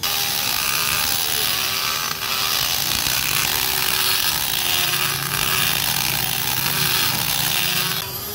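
Corded electric impact wrench running steadily on an excavator track shoe bolt, a continuous motor whine under a hammering rattle, stopping about eight seconds in.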